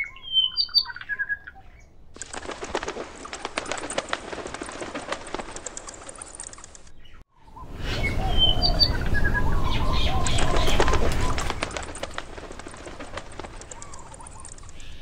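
Birds chirping and wings flapping in a nature recording, played twice: short chirps, then a long stretch of fluttering, rustling noise. It cuts out briefly about seven seconds in and starts again, with more low rumble the second time.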